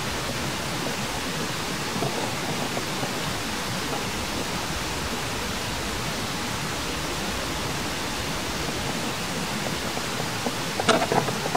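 Steady, even outdoor background hiss, with a few short sharp sounds near the end.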